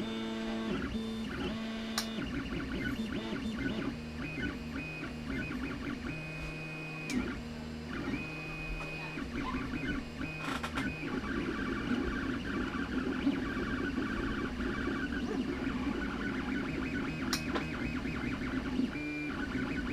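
3D printer's stepper motors running through a print, whining in steady tones that jump to a new pitch every second or two as the print head changes direction and speed, with a few sharp clicks.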